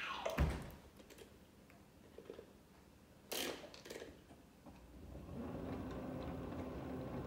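Stand mixer: a clunk as its head is lowered over the bowl, a sharp click about three seconds in, then from about five seconds the motor running steadily at low speed, mixing flour and water for the autolyse.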